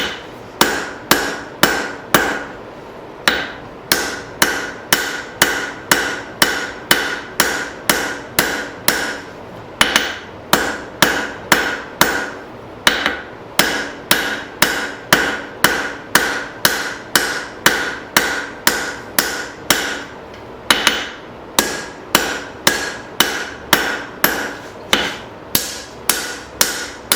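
Blacksmith's hammer repeatedly striking hot leaf-spring steel on the anvil to draw it out and thin it, about two blows a second with a short metallic ring after each. There are a few brief pauses between runs of blows.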